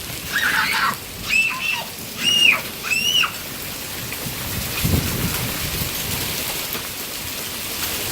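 Steady rain falling, with three short high-pitched squealing calls in the first few seconds and a brief low rumble about five seconds in.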